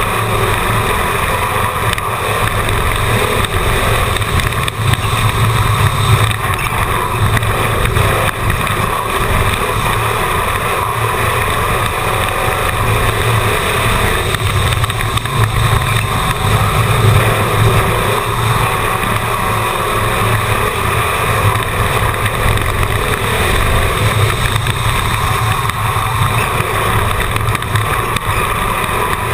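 Race car's engine running at racing speed, heard through a camera mounted on the car itself: a loud, steady drone.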